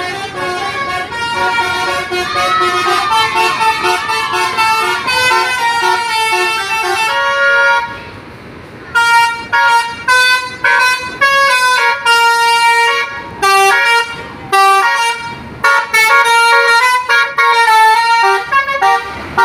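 Basuri telolet multi-tone horns on two buses playing melodies against each other: dense overlapping notes for about eight seconds, a brief pause, then quick runs of short, clipped notes.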